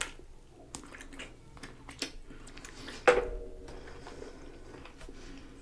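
Close-miked wet chewing and biting of a whole Hot Mama spicy pickle, with many small moist clicks from the mouth and one louder bite about three seconds in.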